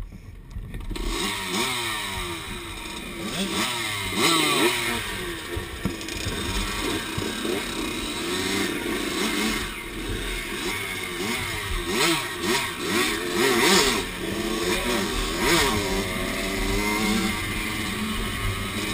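Dirt bike engine running as the bike rides a dirt trail, its pitch rising and falling with the throttle. A few short bursts of rushing noise come through around the middle.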